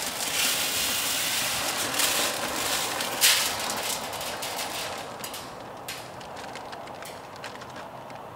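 Shelled corn pouring from a feed bag into a tripod deer feeder's barrel: a steady rushing hiss of kernels for the first few seconds, thinning out into scattered trickles and clicks as the last kernels fall.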